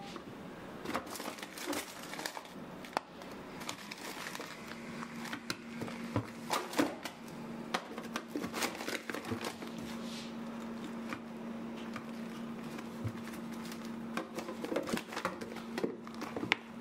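Plastic freezer bags and containers of frozen food rustling, crinkling and clicking as they are handled and lifted in a freezer drawer. A steady low hum starts about four and a half seconds in.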